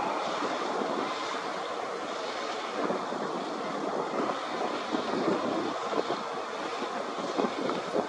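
Wind blowing in gusts, a rough rushing noise that rises and falls.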